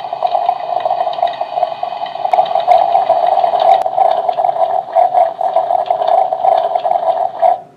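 Single-serve coffee maker running its brew cycle: a steady pump hum with water gurgling through it, cutting off abruptly near the end.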